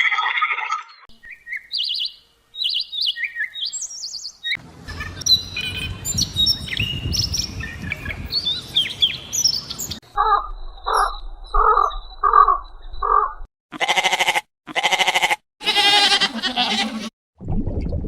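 Birds chirping and calling: short high chirps, then many overlapping calls, then a run of five evenly spaced calls. Near the end come three long, loud calls from an animal that cannot be named.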